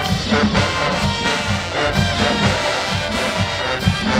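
Marching band playing live: brass and sousaphones over the steady beat of a marching drumline.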